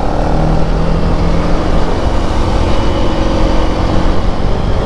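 Motorcycle engine running steadily while riding, with loud low wind rumble on the microphone.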